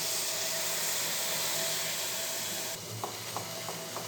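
Water added to jaggery in a hot pan, sizzling with a steady high hiss that cuts off suddenly about three-quarters of the way through. A few light clicks of utensil on pan follow.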